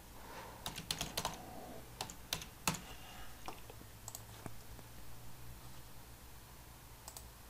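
Typing on a computer keyboard: scattered keystrokes over the first three seconds or so, then a few isolated clicks, over a faint steady hum.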